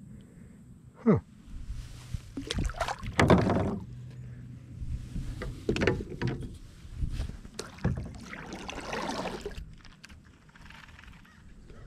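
Knocks, bumps and rustling from handling a largemouth bass and a measuring board aboard a plastic kayak, with a short sharp falling sound about a second in.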